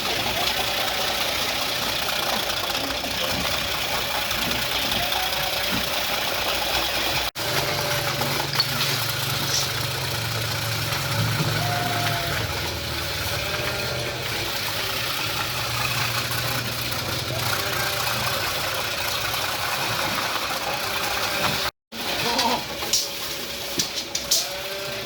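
Motor-driven cassava shredding machine running steadily with a loud mechanical whirr. A low hum joins in for several seconds in the middle. The sound drops out briefly twice.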